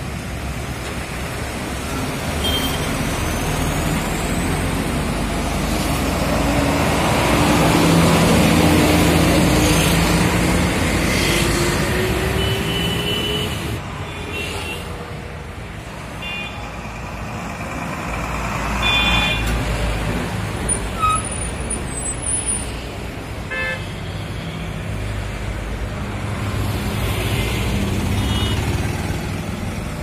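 Heavy diesel trucks driving past one after another, the engine note climbing as one pulls away about a third of the way in. A few short horn toots sound in the middle and second half.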